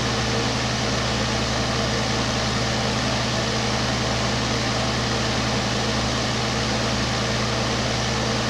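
Steady hiss of a glassworking torch flame burning while glass is worked, with a low hum underneath.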